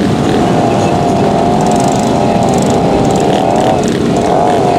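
Off-road vehicle engine running hard, its pitch wavering up and down continuously as the throttle is worked.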